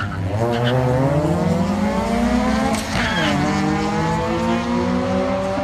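2010 Kia Forte Koup's 2.4-litre four-cylinder engine at full throttle off the drag strip start line. Its note climbs steadily, drops sharply at an upshift about three seconds in, then climbs again through the next gear.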